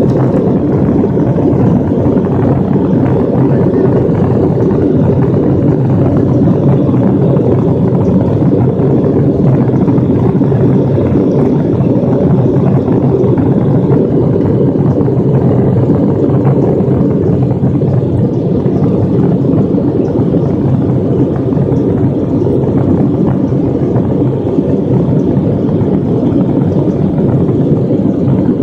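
Steady jet engine and airflow noise heard from inside an airliner cabin, mostly low-pitched and even in level throughout.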